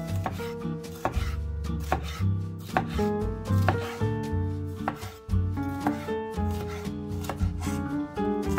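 Chef's knife dicing bell peppers on a bamboo cutting board, the blade striking the wood in a run of irregular chops. Background music with steady notes plays underneath.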